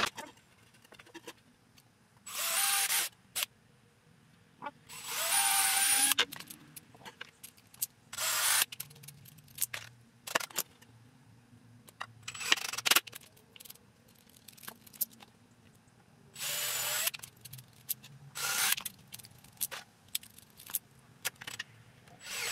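Cordless drill running in six short bursts, the longest about a second and a half, as it pre-drills countersunk pilot holes and drives screws into a wooden board. Light clicks and knocks of handling the drill and boards come between the bursts.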